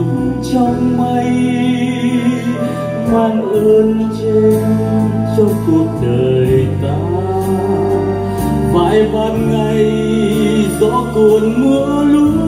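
A man singing a slow song into a microphone, accompanied by a Yamaha Clavinova digital piano playing sustained chords that change every few seconds.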